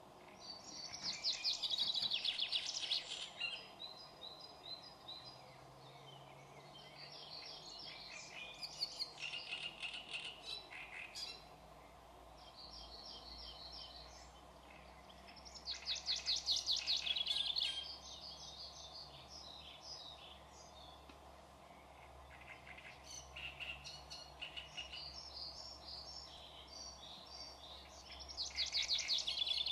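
Songbirds singing in repeated bursts of rapid, high notes, each phrase a second or two long with pauses of several seconds between, over a faint steady background hum.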